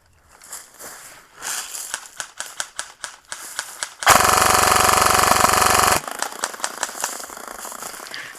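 G&P M249 airsoft electric gun firing one full-auto burst of about two seconds, starting about four seconds in. Scattered clicks and snaps come before and after the burst.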